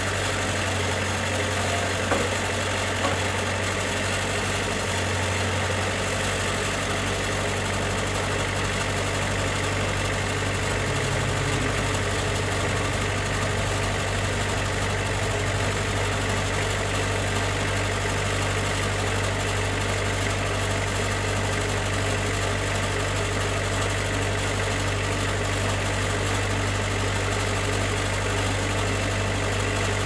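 Portable sawmill's engine running steadily at an even speed, with a couple of light clicks about two and three seconds in.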